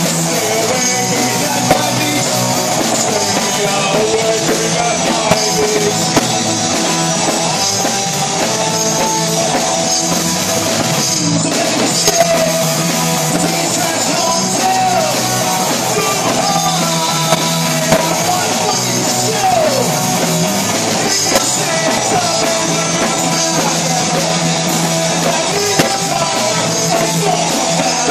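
Rock band playing live and loud: a singer at the microphone over electric guitars, bass guitar and drum kit, without a break.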